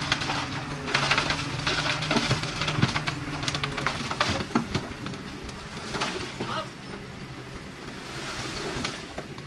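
Diesel engine of heavy earthmoving machinery running steadily under a dense crackle of rubble crunching and clattering, busiest in the first half.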